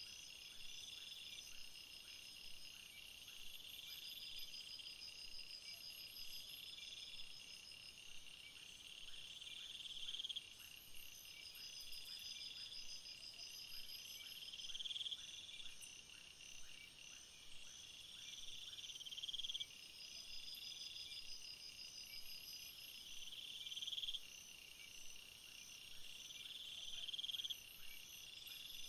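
Insects chirping in a steady chorus. High-pitched calls swell over a few seconds and stop abruptly, repeating about every four to five seconds, over faster pulsing calls.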